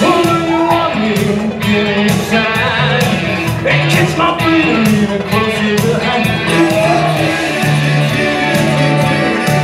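Loud music with a steady beat and a singing voice, played for a stage dance number.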